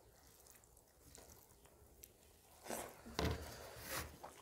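Mostly quiet, then a few short, soft eating noises from about three seconds in, as rice and fried brinjal are eaten by hand off steel plates.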